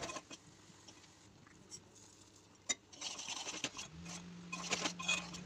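Metal spoon stirring thick boiling mango pulp in a steel pot, scraping and clicking against the pot. It is faint and sparse at first, then busier from about three seconds in, with a low steady hum starting about a second later.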